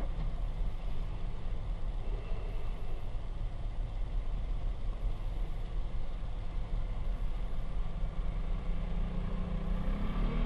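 Car engine idling, a steady low rumble heard from inside the cabin through a dashcam. An engine note rises near the end.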